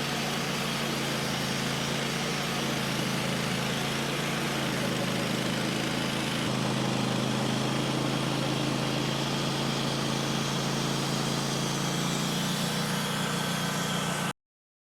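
Sawmill engine running steadily, a constant hum over a hiss, then cut off abruptly near the end.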